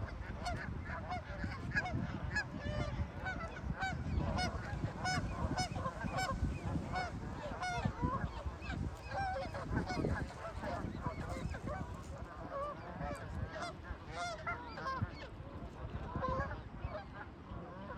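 A large flock of geese honking, many short calls overlapping continuously.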